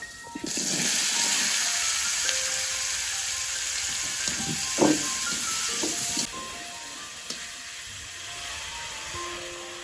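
A loud, steady hiss starts suddenly about half a second in and cuts off abruptly about six seconds in, with a couple of soft knocks near the end of it, over soft piano music.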